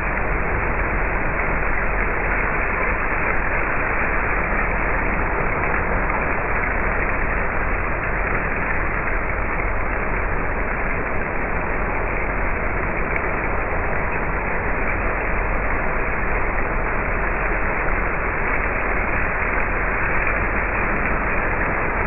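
Coffee roaster's cooling tray running: a steady rushing noise of the cooling fan and the freshly roasted beans being stirred, with a low hum underneath.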